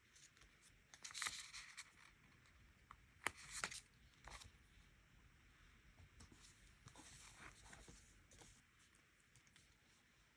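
Stickers peeled from their backing sheet, heard as short, quiet ripping rasps about a second and three seconds in, then soft papery handling and rustling.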